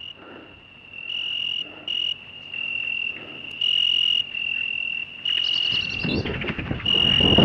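A high, steady whining tone, cut into pieces of about half a second to a second that step slightly in pitch and loudness, with a dense crackle building up under it from about five and a half seconds in.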